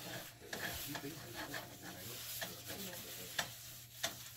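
A wad of paper towel rubbing bacon grease over the inside of a Lodge cast iron skillet, spreading it to season the pan. A few light clicks sound in the second half.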